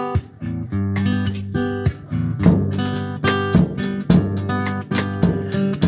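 Acoustic guitar strummed in a steady rhythm, chords ringing, a few strokes a second.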